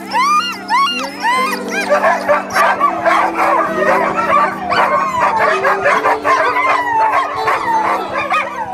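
A chorus of sled dogs whining, yelping and barking, many at once: separate rising-and-falling whines in the first second or so, then a dense, overlapping clamour of yelps and barks. Background music with long held notes plays underneath.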